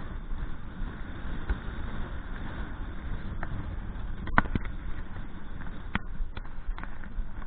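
Strong wind buffeting the microphone in a low, steady rumble, with a few sharp knocks about four and a half and six seconds in.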